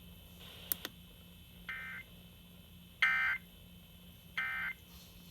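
Three short Emergency Alert System SAME digital data bursts heard over FM radio, each about a third of a second long and about a second apart. Bursts this short match the EAS end-of-message code.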